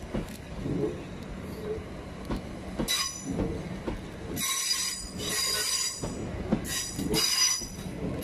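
Class 387 electric multiple unit running past, with knocks from its wheels on the track and, from about three seconds in, several high-pitched bursts of wheel squeal.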